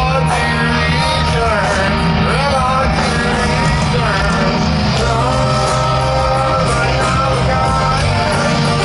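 Live hard-rock band playing: a male voice singing over electric and acoustic guitars and drums.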